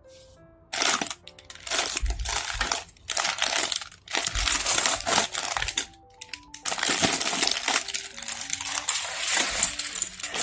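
Clear plastic parts bags crinkling and rustling as they are handled and torn open, with small plastic building bricks clattering out onto a wooden table near the end. A few low thuds along the way.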